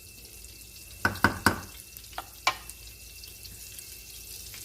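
Melted butter sizzling quietly in a frying pan, with a quick cluster of sharp clinks from a utensil on the pan about a second in and two more single ones shortly after.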